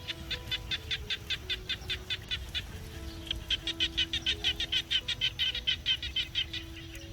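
Rapid pulsed chirping at about five to six chirps a second, in two runs with the second louder, over soft background music with held notes.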